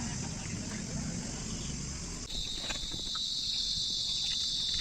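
Crickets trilling steadily in a high-pitched, continuous chorus that grows stronger a little over two seconds in.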